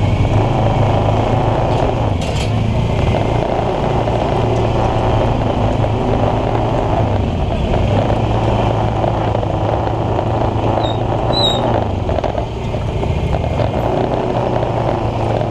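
Motor scooter engine running steadily at low riding speed, a continuous low hum.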